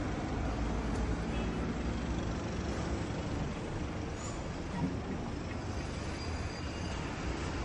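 Steady low rumble and hiss of background noise, like road traffic, with no clear single event.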